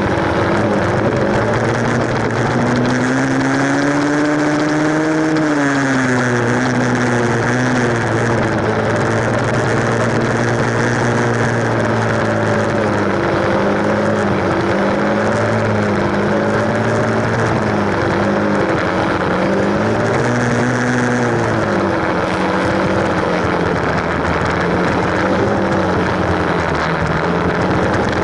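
Dirt bike engine running under way, its pitch rising with the throttle a few seconds in, then dropping back. It climbs and falls again about twenty seconds in.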